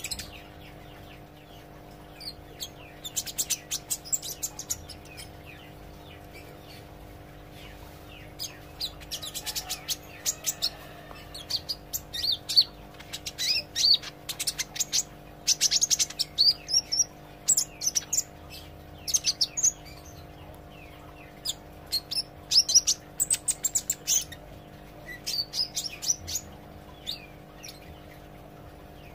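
Green sunbird (kolibri ijo) singing in bursts of rapid, high, sharp chirps and short trills, with brief pauses between phrases, over a faint steady hum.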